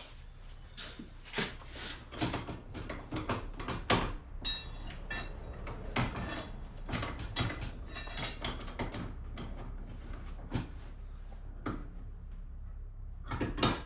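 Irregular clanks and knocks of metal parts being handled and fitted, a few with a brief metallic ring, over a low steady hum.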